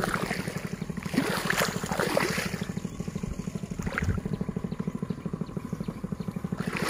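A small engine running steadily with a fast, even beat, with a few splashes in mud and shallow water over it.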